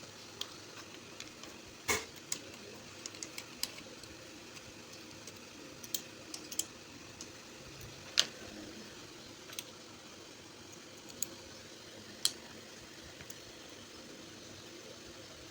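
Scattered sharp clicks and light taps of small hard parts being handled and set down, loudest three times, over a steady low hum.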